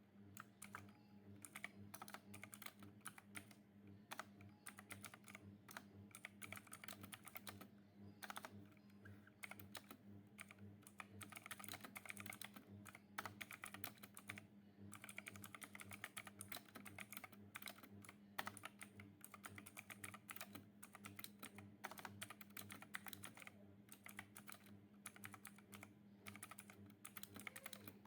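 Typing on a Zifriend T62 63-key compact mechanical keyboard: fast, faint key clicks in bursts with short pauses, over a faint steady low hum.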